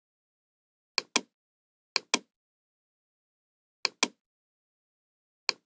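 Computer mouse button clicking four times, each click a quick pair of sharp snaps (press and release).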